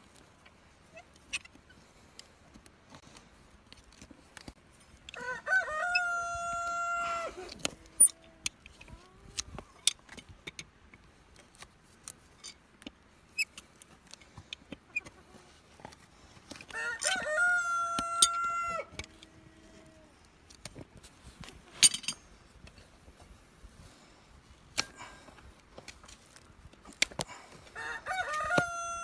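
A rooster crows three times, about ten seconds apart, each crow a long pitched call of about two seconds. Between the crows come sharp snaps and clicks of hoof nippers and a hoof knife cutting the hoof horn, a few of them very loud.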